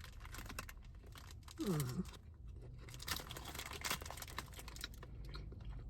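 Someone eating a boerewors roll, with soft chewing and a paper wrapper crinkling in scattered faint crackles. A short falling "mmm" comes about two seconds in.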